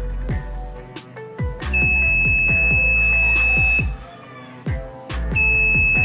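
Small circuit-board buzzer on a transistor relay buzzer circuit sounding a steady high tone for about two seconds, then starting again near the end. It sounds only while the momentary push button is held down.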